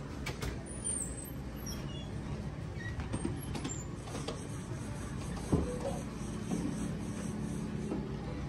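A steady low mechanical hum with scattered light clicks and knocks, and one sharper knock about five and a half seconds in.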